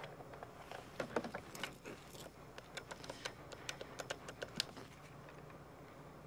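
Quick run of sharp plastic clicks, a dozen or more starting about a second in and stopping near the five-second mark: buttons on a corded telephone pressed as a number is dialed. A faint steady hum lies underneath.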